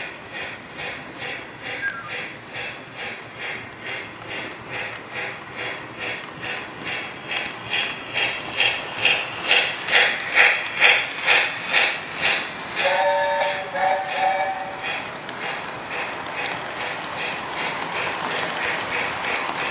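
Model trains running on track, a steady rhythmic clatter of about two beats a second that grows loudest as the cars pass close about ten seconds in. About thirteen seconds in, a toy train whistle sounds in two short chord-like blasts.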